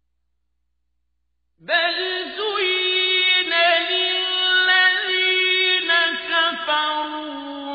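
A man reciting the Quran in Arabic, chanted slowly and melodically with long held, ornamented notes. The recitation begins after nearly two seconds of silence.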